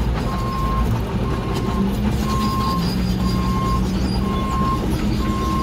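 Telehandler engine running steadily, its note rising slightly about two seconds in, while its warning alarm beeps at one pitch about once a second.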